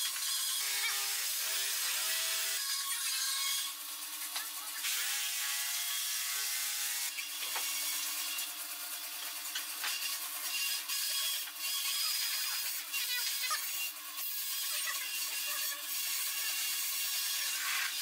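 Pencil scratching along a steel rule on a pine board as lines are marked out, with light clicks and taps of the rule and square block on the wood. A few short wavering squeaky tones come through twice, in the first few seconds and again around the middle.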